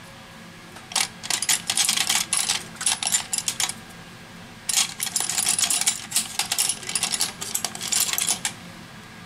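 Rapid clicking and clinking of small hard objects, in two bursts of about three and four seconds with a short pause between.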